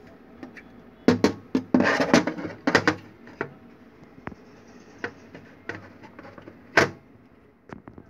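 Handling noise from an aircraft smoke detector unit being turned over in the hand: a burst of knocks and rubbing clatter in the first few seconds, light scattered ticks, then one sharp click near the end.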